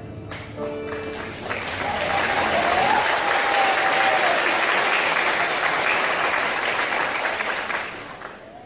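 A choir's last held chord sounds briefly at the start; about a second and a half in, the audience breaks into applause, which fades out near the end.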